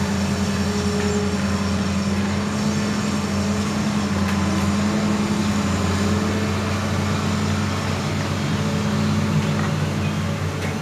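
Hitachi Zaxis 200 crawler excavator's diesel engine running steadily with a deep hum, working under load as the boom lifts and the machine swings its loaded bucket.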